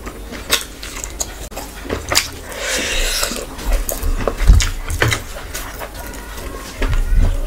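Close-miked eating: fingers squishing and mixing rice with curry on a steel plate, then wet chewing and lip smacking, with many short clicks.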